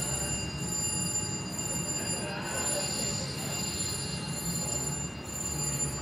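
Casino floor din: a steady wash of slot machines' electronic ringing tones and jingles over a low murmur, with no single event standing out.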